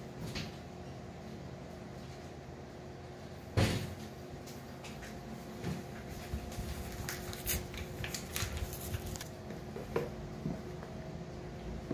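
Kitchen handling sounds over a steady low hum: one sharp knock about three and a half seconds in, then scattered light clicks and taps toward the end as a scoop is worked into a plastic flour tub.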